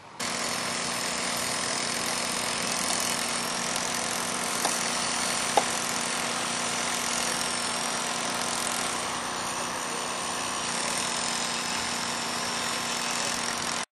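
Mobile crane's diesel engine running steadily, with a faint high whine over it. There is one short sharp click about five and a half seconds in.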